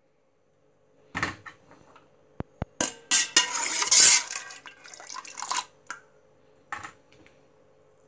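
Metal spoon clinking and scraping against a steel pot while stirring cooked chickpeas in their liquid. Scattered knocks and a few sharp clicks come first, then a busier stretch of clatter and scraping a few seconds in.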